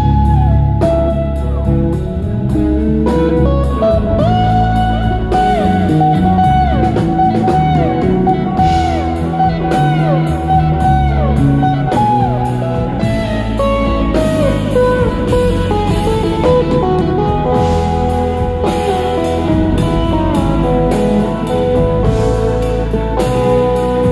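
Live band music: a pedal steel guitar plays a slow lead of sliding, bending notes over electric bass and drum kit.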